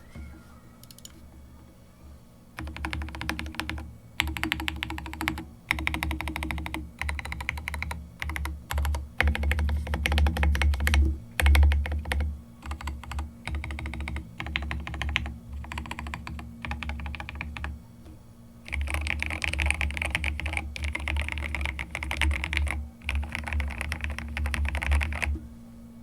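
Typing on a Rama Kara HHKB-layout mechanical keyboard with Lavender linear switches and SA-profile keycaps, in bursts of quick keystrokes with short pauses, with a deep, thocky sound. After a brief pause near the middle, the typing resumes brighter and more continuous.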